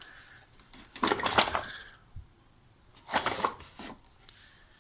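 Loose steel lathe tool bits clinking and rattling against each other as they are handled, in two short bursts: about a second in and again about three seconds in.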